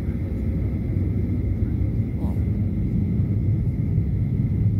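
Boeing 737-900ER's CFM56-7B jet engines at idle, heard from inside the cabin as a steady low rumble with a faint high whine.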